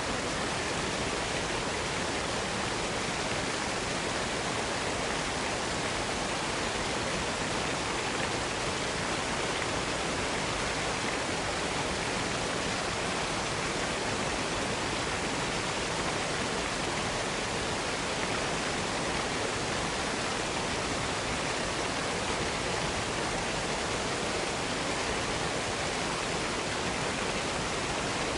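Waterfall: a steady, unbroken rush of falling water, even from deep to high with no changes.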